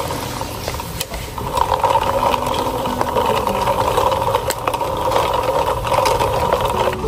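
Pot of water at a rolling boil on the stove, bubbling steadily with scattered light clicks, quail eggs just added to it.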